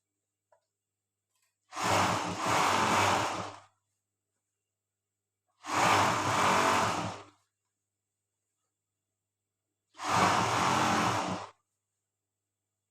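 Overlock sewing machine running in three short bursts of about two seconds each, stitching a seam, with stops in between.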